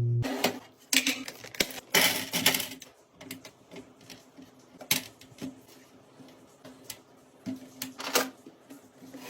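Food packages and plastic containers being handled and set into a refrigerator: scattered clicks, knocks and short rustles of packaging, loudest about two seconds in.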